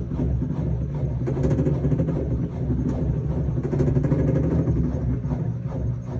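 Samsung washing machine's drum motor running with a steady low drone and repeated knocks as it turns the drum to weigh the load. This is the unusual noise during the load-weighing stage.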